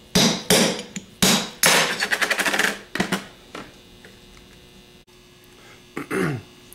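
Hammer blows on a 3/8 extension knocking the old drive-end bearing out of a Ford 6G alternator's cast aluminium end housing. A series of sharp metal strikes quickens into a rapid flurry around two seconds in, and the strikes stop after about three seconds once the bearing is out.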